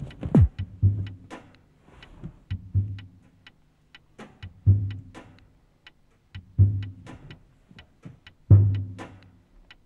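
Pulsing sound score: a deep thump about every two seconds, like a slow heartbeat, with scattered sharp clicks and ticks between the beats. A low falling swoop comes just after the start.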